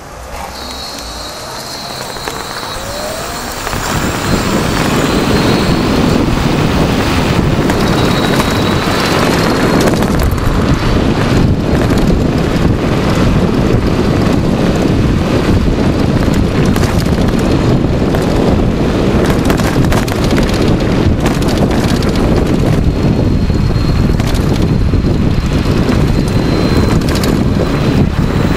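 Wind rushing over the microphone with road and tyre noise from a 110-volt electric bike, growing louder over the first few seconds as it picks up speed and then holding steady at cruising speed. A faint high whine from the electric drive comes and goes.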